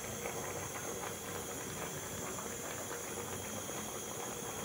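Pot of yam pepper soup boiling: a steady bubbling hiss with many small pops.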